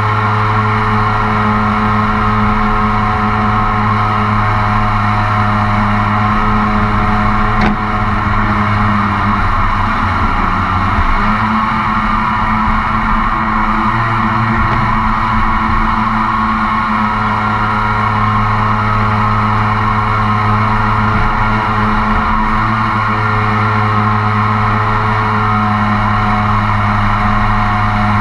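A RiverRat mini jet boat's engine and jet drive running steadily while underway upstream. The pitch dips briefly about ten seconds in as the throttle is eased, then comes back up.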